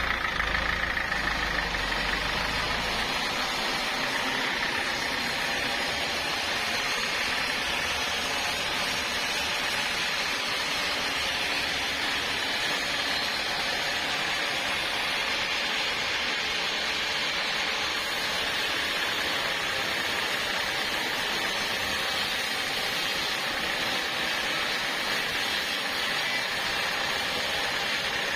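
Sawmill saw running steadily through large timber, a continuous mechanical noise. A deep low hum under it drops away about three seconds in.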